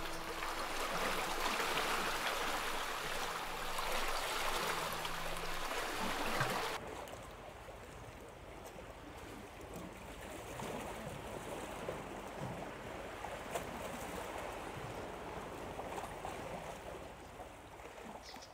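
Sea water washing against the shore: a steady rushing noise that cuts abruptly to a quieter wash about seven seconds in.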